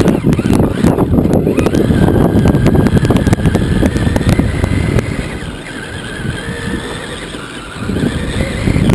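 Onboard sound of a Traxxas Summit electric RC truck driving a dirt track: a loud rattling rumble of the chassis and tyres over the bumps, with a faint wavering motor whine above it. It eases off for a couple of seconds past the middle, then picks up again near the end.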